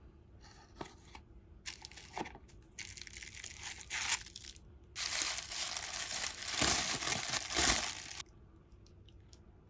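Tissue paper crinkling and rustling as a wrapped leather strap is lifted out and unwrapped, first in short bursts, then in a longer, louder stretch that stops abruptly about eight seconds in.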